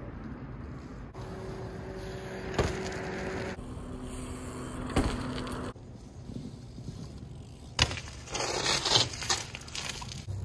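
BMX bikes riding a concrete loading-dock ledge and drop: tyres rolling on concrete, with sharp landing impacts about two and a half seconds in and again about five seconds in, and a cluster of clicks and knocks near the end as a bike rolls close.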